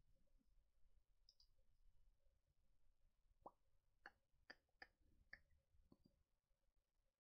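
Near silence: quiet room tone with a quick run of about six faint computer mouse clicks in the middle.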